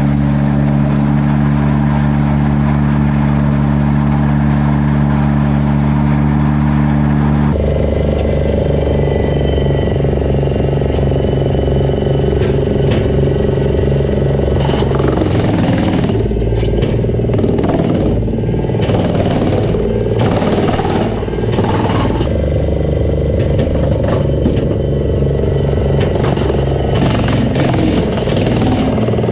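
Flat-four engine of a Morbark wood chipper running steadily. About seven seconds in its note changes abruptly, and from about halfway on irregular knocks and clatters sound over the running engine.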